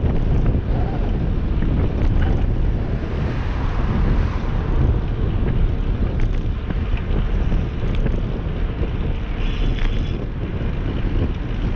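Wind buffeting an action camera's microphone on a moving bicycle: a steady low rush, with a brief higher hiss a little before the end.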